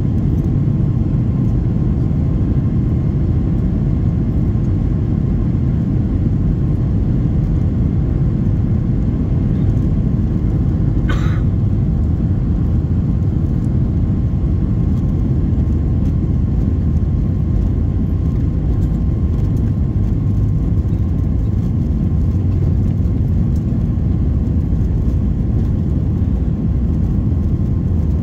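Boeing 737 MAX 8 heard from the cabin on its takeoff run: the CFM LEAP-1B engines at high thrust and the wheels rolling on the runway make a steady, loud, low rumble with a faint steady whine. A brief sharp click sounds about eleven seconds in.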